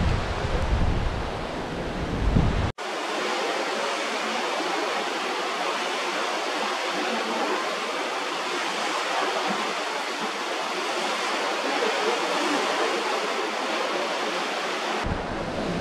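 Heavy rain falling in a steady hiss, with wind buffeting the microphone in a low rumble at the start and again near the end.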